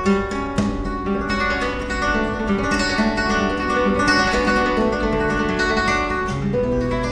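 Solo flamenco guitar playing por soleá: plucked notes and chords, with some sharp strummed (rasgueado) attacks.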